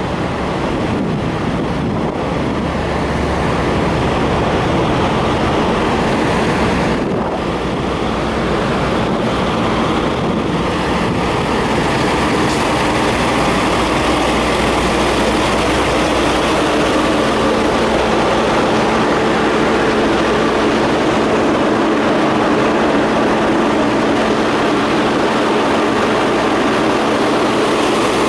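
Steady drone of parked semi trucks' diesel engines running, with a low steady hum that becomes stronger about halfway through.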